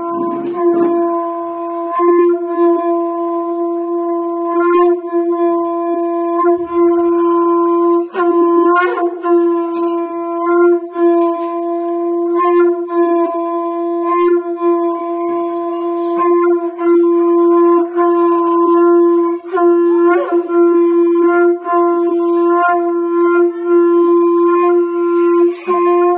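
Conch shell (shankh) blown in one long held note, steady in pitch, with brief small wavers in loudness as the blowing continues.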